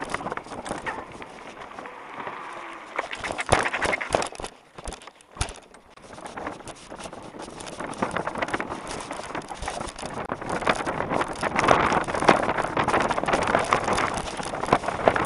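Mountain bike ridden fast over rough, dry grass, heard from a helmet camera: tyre noise with a dense rattling and clicking of the bike and camera. It drops off briefly about five seconds in, then picks up again and grows louder.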